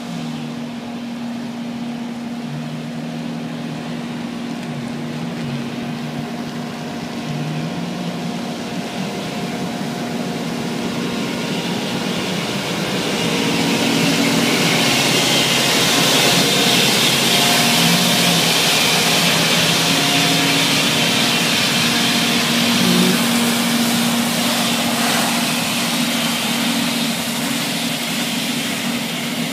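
Truck-mounted Disab dry vacuum sweeper running while sweeping: a steady diesel hum under a broad rushing hiss from the suction fan and brushes. The hiss swells loud about halfway through as the truck passes close, then eases slightly as it moves away.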